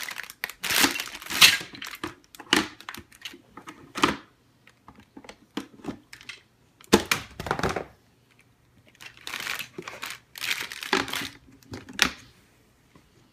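Plastic Lego parts bag crinkling and rustling in irregular bursts as it is handled and torn open.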